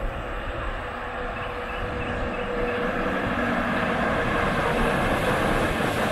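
A vehicle's steady hum and whine, growing louder as it approaches.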